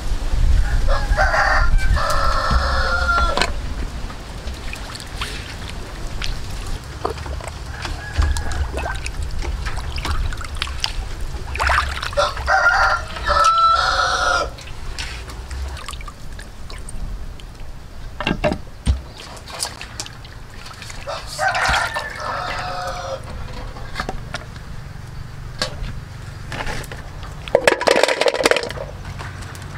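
A rooster crowing three times, about ten seconds apart, each crow two to three seconds long, over water sloshing as a fish is washed by hand in a metal basin. Near the end, dried mushrooms are tipped into an empty metal bowl.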